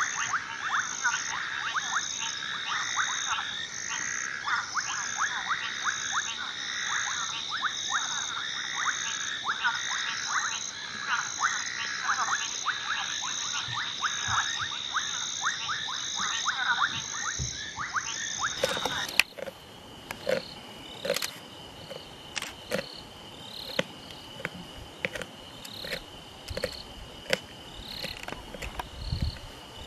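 Night chorus of frogs calling rapidly and rhythmically. About two-thirds through it cuts to insects trilling steadily, with scattered sharp clicks.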